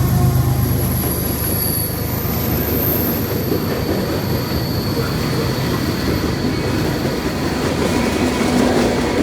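Train cars rolling past: a steady rumble of steel wheels on the rails, with faint, thin, high-pitched wheel squeal over it.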